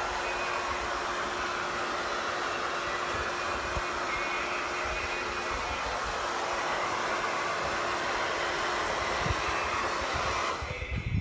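Hair dryer blowing steadily, with a faint steady hum under the rush of air. It cuts off suddenly near the end.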